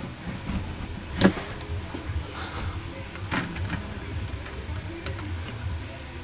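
Handling noise while working on thin interior paneling: three sharp clicks or taps, spaced a second or two apart, over a low steady rumble.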